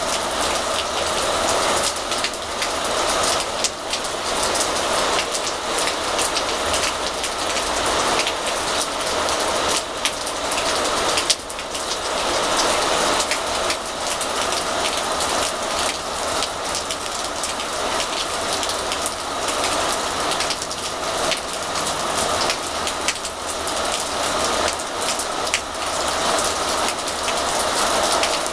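Steady rain falling, a dense patter of drops striking surfaces, with one sharper drop hit about eleven seconds in.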